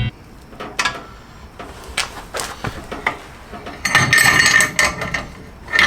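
Metal tools and parts clinking and clanking as a threaded-rod bushing press tool is handled, with scattered sharp knocks and a ringing metallic rattle about four seconds in and again near the end.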